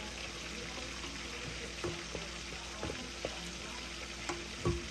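Onions and chopped vegetables sizzling in hot oil in a stainless steel pot, stirred with a wooden spatula that knocks against the pot a few times.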